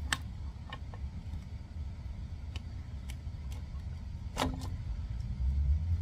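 Scattered light metal clicks and clinks from a diesel injection pump being worked into place on the engine, with one louder, briefly ringing clink about four and a half seconds in, over a steady low rumble.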